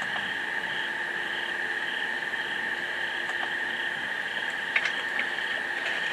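Insect chorus: a steady high trill with a second chirp pulsing about twice a second above it, and a few short sharp clicks near the end.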